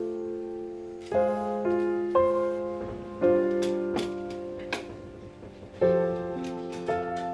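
Background piano music: a slow, gentle piece of held chords, a new chord struck about every second and left to fade.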